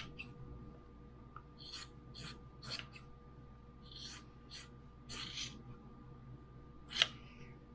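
Scissors snipping through pillowcase fabric, cutting it into small strips: a series of faint, short, crisp cuts, about eight in all and unevenly spaced, with the loudest near the end.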